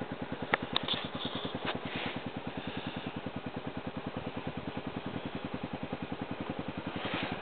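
ATV engine idling with an even, fast putter of about thirteen beats a second. A few light clicks or knocks come in the first two seconds.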